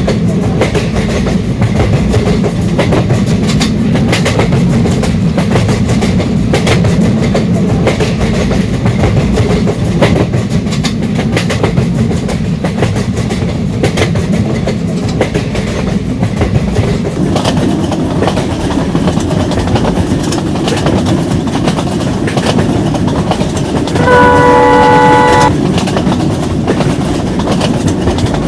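Express train running, a steady rumble with the clickety-clack of wheels over rail joints. Late on, the train's horn sounds once for about a second and a half.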